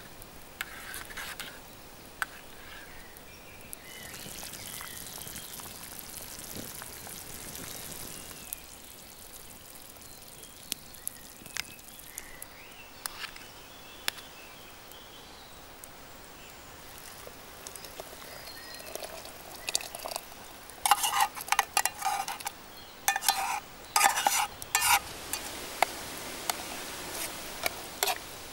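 Tomato sauce sizzling in a metal mess tin over a campfire while it is stirred, with scattered small clicks. About 21 to 25 seconds in, a utensil scrapes and clinks against the metal tin in a series of loud strokes.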